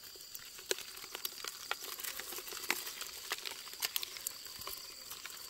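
Irregular sharp crackles and small splashes in shallow muddy water, a few a second, with louder ones about three quarters of a second, two and three quarters, and near four seconds in. Under them runs a steady high insect drone.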